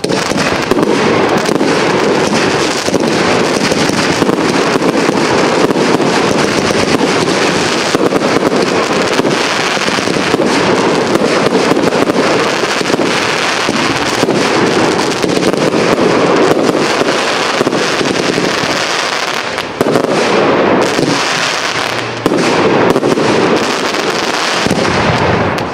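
Professional fireworks display: a dense, continuous barrage of aerial shell bursts and crackling stars, many bangs overlapping. It eases off briefly about twenty seconds in and again a couple of seconds later.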